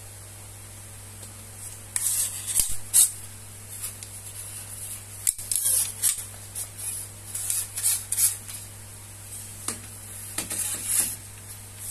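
Handling noise from a telescopic carbon selfie stick being moved about: irregular rustles and scrapes with an occasional sharp click, starting about two seconds in. A steady low electrical hum runs underneath.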